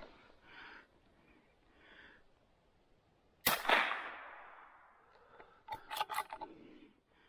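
A single shot from a CZ 455 .22 rimfire bolt-action rifle about three and a half seconds in: a sharp crack followed by an echo that fades over about a second and a half. About two seconds later comes a quick run of four or five metallic clicks as the bolt is worked to chamber the next round.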